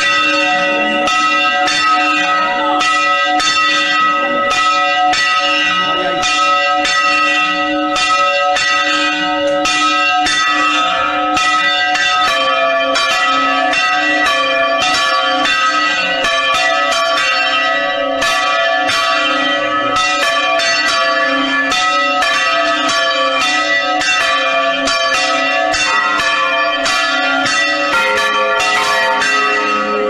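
Motor-driven swinging church bells of Sant Jaume, Vila-real, ringing a festive full-swing peal: several bells strike in a dense, unbroken stream, their tones hanging over one another. It is a mechanized, automatic ringing, not rung by hand.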